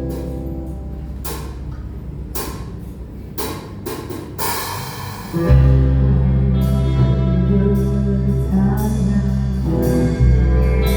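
Live praise band playing, with guitar and drum hits, then a cymbal wash and the full band with a heavy bass coming in loudly about five and a half seconds in.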